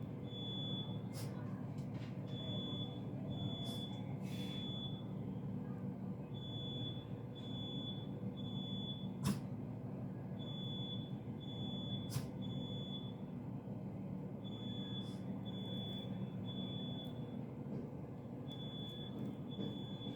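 Building fire alarm sounding in a repeating pattern of three high beeps and a pause, about every four seconds: the temporal-three evacuation signal. Under it runs a steady low rumble, with a few sharp clicks, the loudest about nine seconds in.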